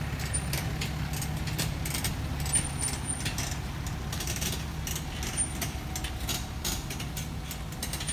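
Heavy-duty pickup truck engine running steadily at low speed as it tows a fifth-wheel travel trailer slowly past, with irregular light clicks and rattles over the low hum.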